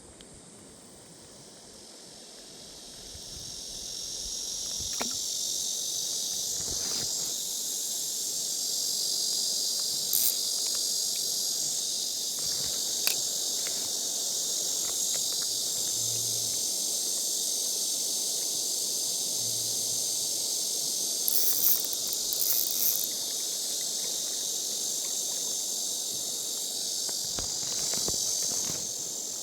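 Chorus of insects, a steady high-pitched drone that swells about three seconds in and eases slightly near the end. A few sharp clicks come through in the middle.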